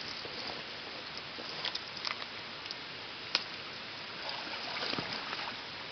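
Pond water sloshing and trickling steadily, with a few short sharp splashes.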